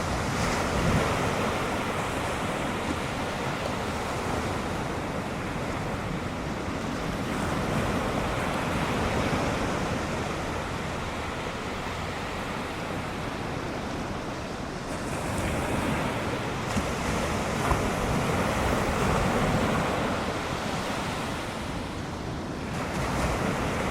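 Ocean surf from a typhoon swell: waves breaking and washing in as a continuous rush that swells and eases every few seconds, with wind buffeting the microphone.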